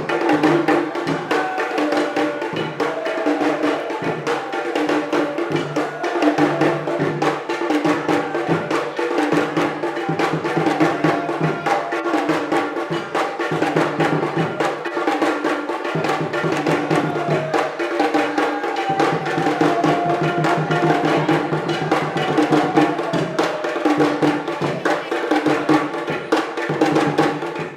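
Music with a busy percussion beat, with many quick knocking strokes over a steady low pulse and a wandering melody.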